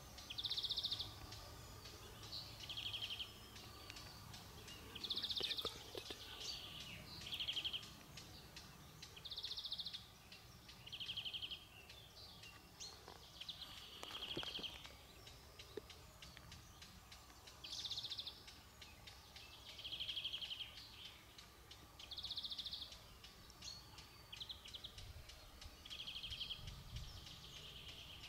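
A bird singing short, buzzy trills over and over, one every second or two, alternating between a higher and a slightly lower pitch, over a faint outdoor background.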